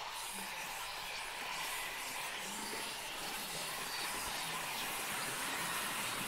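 Native Instruments Mysteria's Latin Whisper choir patch playing: a dense, steady wash of many breathy whispered voices, slowly shifting as the control pad is moved.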